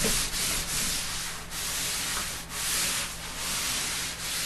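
Eraser rubbing black chalk into paper to tone it an even black: a dry, scratchy hiss in repeated strokes, about two or three a second, with one longer sweep in the middle.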